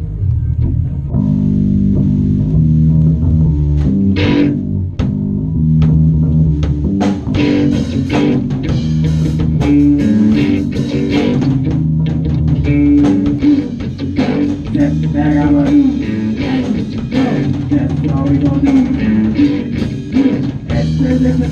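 A punk/ska band playing live in a rehearsal room: electric bass, electric guitar and a Pearl drum kit. The drums pick up about seven seconds in.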